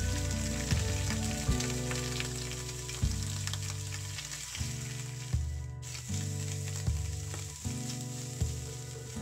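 Garlic, dried chillies and minced pork frying in hot oil in a wok, a steady sizzle with some stirring, under background music.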